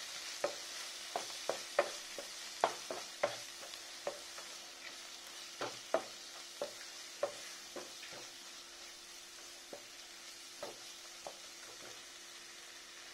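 Onion-tomato masala sizzling as it fries in a nonstick pan, stirred and scraped with a wooden spatula. The spatula knocks against the pan come thick and fast at first and thin out later, and the sizzle slowly fades.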